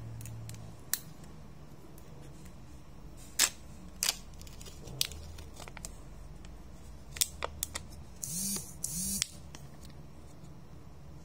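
Foil-backed lid being peeled off a Kinder Joy plastic egg, with sharp crinkles and clicks of the foil and plastic, the loudest about three and a half seconds in. About eight seconds in come two short rasps of the lid tearing free.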